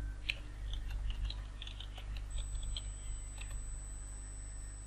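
Computer keyboard being typed on: a quick run of light key clicks lasting about three seconds, over a steady low hum.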